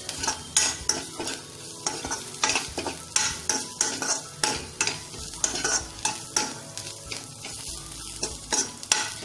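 Perforated metal spatula scraping and stirring sliced onions and masala around a non-stick kadhai, a quick run of strokes about two a second, over the sizzle of the onions frying in oil.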